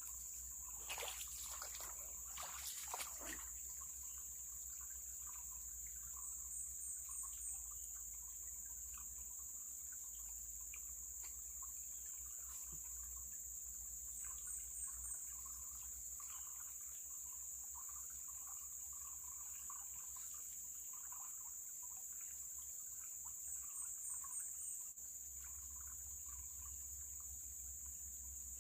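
Steady high-pitched drone of insects with a faint trickle of water from a small stream. Three times, a quick run of four or five chirps, and a few brief louder swishes near the start.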